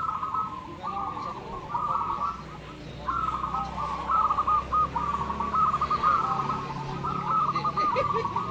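Many zebra doves (perkutut) cooing at once, their repeated rolling coo phrases overlapping, with a brief lull about two and a half seconds in.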